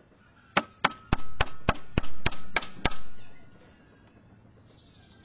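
A hatchet used as a mallet knocks on wood: about nine sharp blows in quick succession over two seconds, tapping a wooden piece into place against a plank. A faint ringing note carries between the blows.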